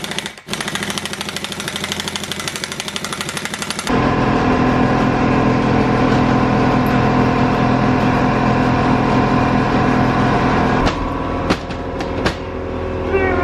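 Impact wrench hammering in a rapid, even rattle for about four seconds, tightening the flywheel nut on a Mazda 13B rotary engine. It stops, and a loud steady machine hum at a fixed pitch takes over, with a few sharp clanks near the end.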